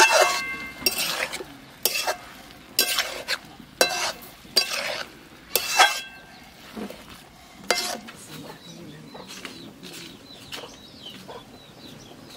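Metal spatula stirring chunky curry in a metal pan, scraping and clinking against the pan with a short metallic ring about once a second. The strokes turn softer after about eight seconds.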